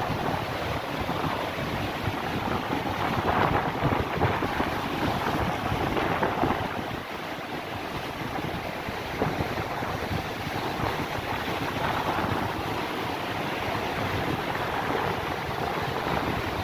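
Waves of a rough sea breaking and washing on the shore, with wind buffeting the microphone. A couple of louder surges come a few seconds in.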